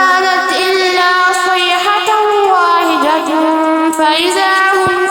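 A single voice reciting the Quran in melodic tajweed style, holding long notes with slow pitch bends and ornamental wavers.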